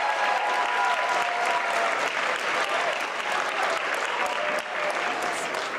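Audience applauding, dense clapping with a few voices calling out over it, easing off slightly near the end.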